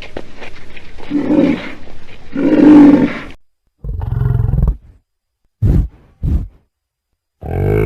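A large animal's roar, long and pulsing, for about three seconds, then after a short gap a string of four short, separate grunting calls.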